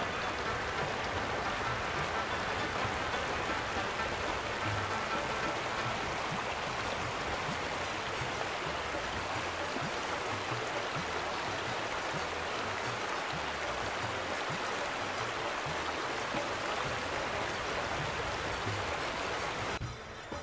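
Steady hiss of water, running or falling, that cuts off abruptly near the end.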